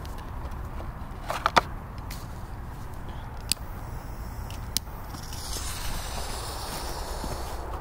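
Wind rumbling on the microphone with a few sharp clicks and knocks, the loudest about a second and a half in. From about five seconds in, a steady high hiss joins them: a lit firecracker fuse burning down before the blast.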